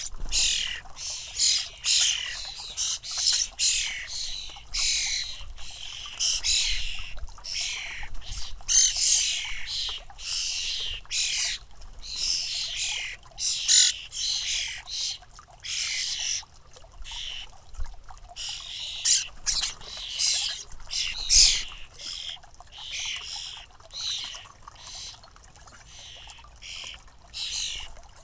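European starling fledglings calling over and over, about two harsh, hissy calls a second: the begging calls of young starlings waiting to be fed. The calls grow quieter in the last few seconds.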